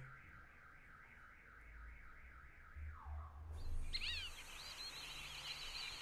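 Fulvous Whistling-Duck calling. A faint, quickly repeated call comes first, then from about halfway through come several sharp whistled calls that rise and fall in pitch.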